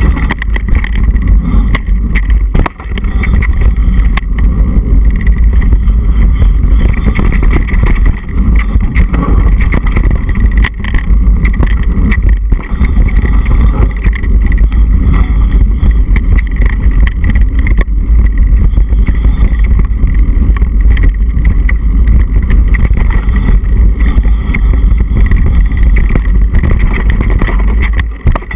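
Mountain bike descending a rough dirt trail at speed, heard through the rider's action camera: a heavy, steady low rumble of wind and ride noise on the microphone, with frequent knocks and rattles from the bike bouncing over the ground.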